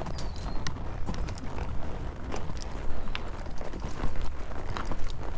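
Horse's hooves clip-clopping at a walk on the trail, an uneven run of hoof strikes heard from the saddle over a steady low rumble.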